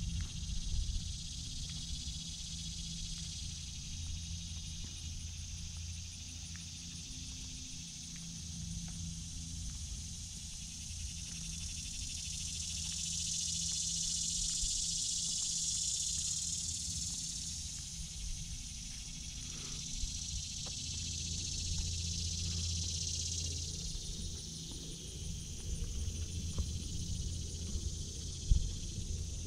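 A high, steady insect chorus that swells louder about halfway through and again a little later, over a low steady hum.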